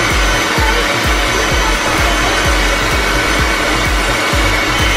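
Leaf blower running steadily, blowing air into a giant balloon to inflate it.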